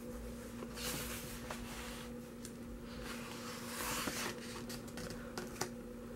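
A page of a photo book being turned by hand: two paper swishes, then a couple of sharp ticks about five seconds in.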